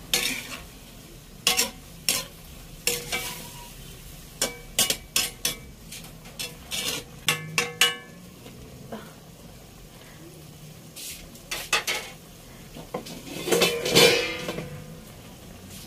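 Metal spatula stirring chicken liver and gizzard simmering in broth in a metal wok: irregular scrapes and clinks of metal on metal over a gentle sizzle, with a louder clatter near the end.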